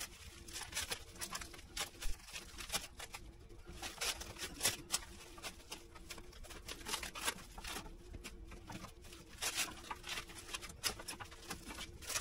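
Plastic packing wrap crinkling and rustling in many small, irregular crackles as it is pulled and handled at a lawn mower's handle console.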